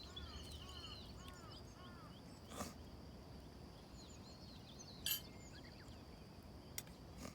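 Faint outdoor ambience with small birds chirping: a run of short, repeated arching notes in the first second or two, then scattered calls. A faint steady high tone runs underneath, and a few soft clicks come through.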